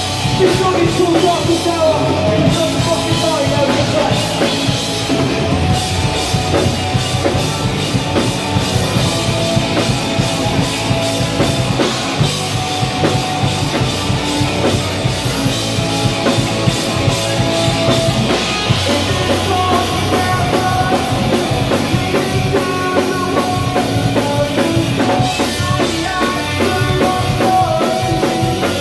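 Loud live rock band playing: electric guitar, bass guitar and drum kit.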